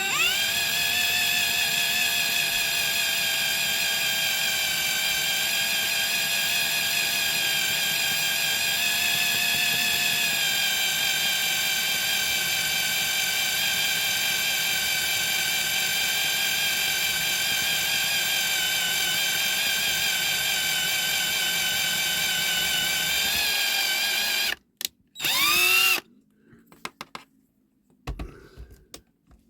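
Electric drill with a 2.5 mm bit running at a steady, unhurried speed, drilling out the die-cast rivet of a Matchbox Volkswagen 1200 model so the base can come off. It makes a steady whine that stops about 24 seconds in, then a brief second burst that spins up and stops again.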